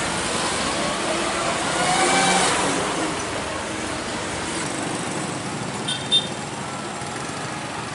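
Road traffic at close range: cars and motorcycles moving slowly past, with indistinct voices of people nearby. A short, sharp, high sound stands out about six seconds in.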